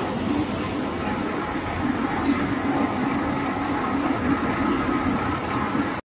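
Brush-roller potato washing and drying machine running steadily, a rough even rumble of the turning rollers and drive, with a steady high-pitched whine over it.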